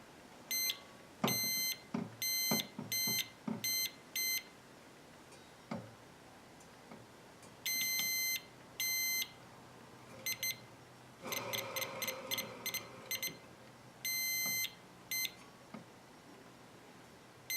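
Multimeter continuity beeper sounding in irregular short and longer beeps as the table saw blade is turned by hand, with handling knocks and a brief whir. The beeps come only at some positions: the motor's brushes are only touching on two spots, which the owner takes for a badly messed-up motor, possibly worn brushes or a bad commutator winding.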